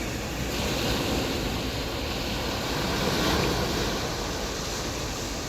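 Sea waves washing on a beach, a steady rush of surf that swells to its loudest about three seconds in.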